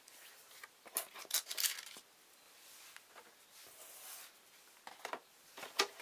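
Paper and cardboard being handled, a decal sheet and a plastic model kit box, making short rustling scrapes: one cluster about a second in, a softer rustle around four seconds, and another cluster near the end.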